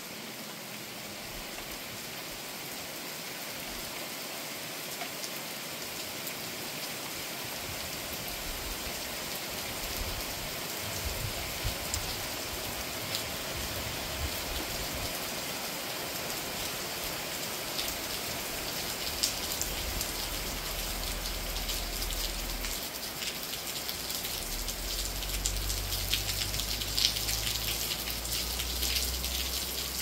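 Rain falling steadily and slowly getting heavier, with more individual drops pattering in the second half.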